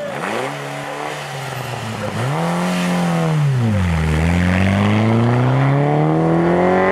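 Small hatchback rally car's engine revving hard through a hairpin. The revs climb and hold, drop briefly, rise and fall again, then climb steadily about four seconds in as the car accelerates away.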